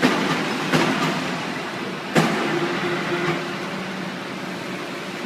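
NC plate bending machine running as its Y-axis travels: a steady mechanical hum with sharp clicks at the start, about a second in and just over two seconds in.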